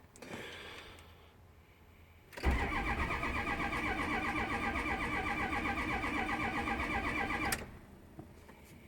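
A 6.0 truck engine cranked over by its starter for about five seconds without firing, then the starter cuts off suddenly. It is a no-start on batteries that are really low; the owner thinks cranking speed needs to be closer to 200 rpm for it to fire.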